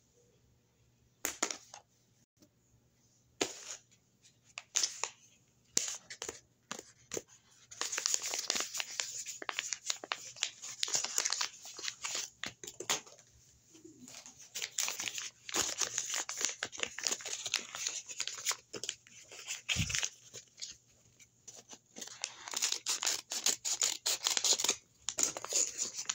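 Paper crinkling and tearing as a handmade paper blind bag is handled and torn open: a few sharp crackles at first, then long stretches of quick, irregular rustling.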